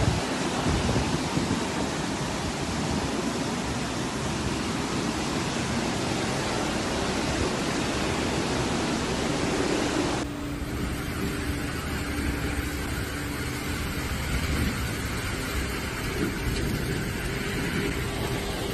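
Flash-flood torrent rushing through a street: a steady, loud rush of water. About ten seconds in it cuts off abruptly, giving way to a duller, steady outdoor noise with a faint low hum.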